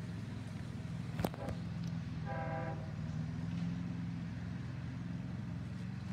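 Horn of an approaching Long Island Rail Road train sounding one short blast about two seconds in, over a steady low rumble of the oncoming train. A single sharp click comes about a second in.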